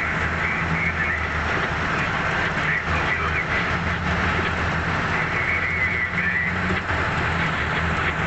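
Heavy diesel engine of open-pit mining equipment running steadily at close range, a low drone with a high whine that comes and goes over it.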